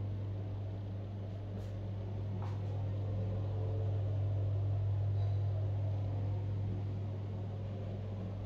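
A steady low hum over a faint even hiss, swelling slightly midway.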